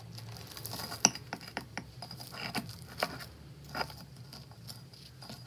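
Knife cutting through a baked puff-pastry chocolatine on a plate: a run of crisp crackles and clicks as the flaky layers break, the sharpest about a second in.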